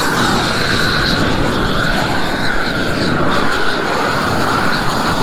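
A propane roofing torch burning steadily at full flame, heating the underside of a roll of modified bitumen membrane to melt it down onto the old roof and the metal edge.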